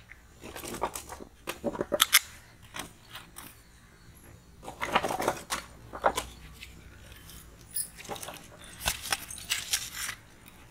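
Sticks of firewood knocking and scraping as they are laid onto a newly lit charcoal fire in a pit hearth, in a series of short sharp clatters.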